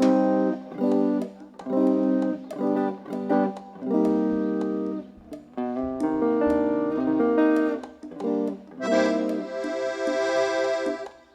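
Instrumental music with no voice: a guitar plays rhythmic chords alongside an accordion, and the accordion comes in with louder held notes near the end.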